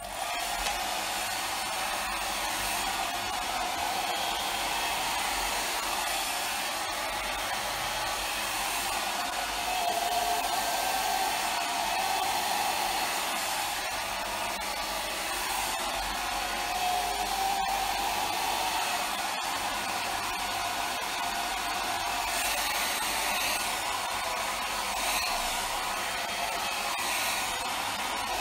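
Handheld hair dryer running steadily: a continuous rush of blown air with a motor whine that wavers slightly in pitch.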